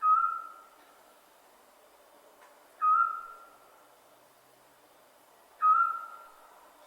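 Scops owl giving its short single whistled hoot three times, evenly spaced about three seconds apart, over a faint background hiss.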